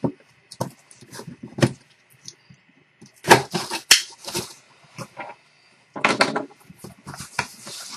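Cardboard shipping box being opened and its packing handled: irregular rustles, scrapes and knocks.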